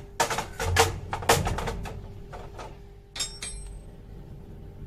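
A quick, irregular run of sharp knocks and clicks in the first two seconds, then a short ringing clink about three seconds in, over a faint steady hum.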